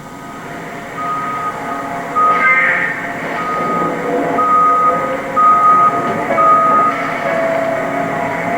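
Snowplow truck's backup alarm beeping about once a second, each beep a steady high tone, over the steady rumble of the truck.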